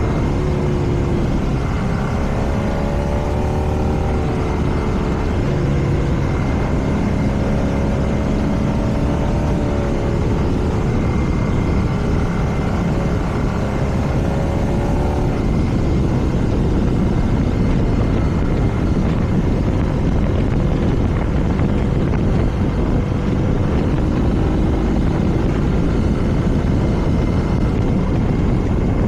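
BMW R nineT's air/oil-cooled boxer twin running under way, its pitch climbing and dropping again several times through gear changes in the first half. From about halfway the rush of wind over the microphone grows and masks the engine, which is heard rising again near the end.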